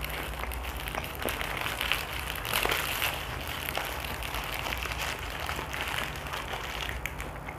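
Paper food wrapper crinkling and rustling as it is unfolded and peeled off a portion of rice, a continuous crackle of small crisp clicks.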